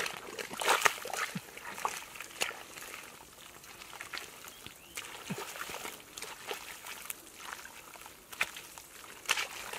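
Wet squelches and splashes of bare feet and hands working through shallow watery mud, coming irregularly, with a cluster in the first second and another near the end.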